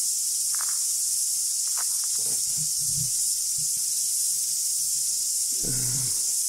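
Steady, high-pitched hiss of a summer cicada chorus in the bush, holding level without a break.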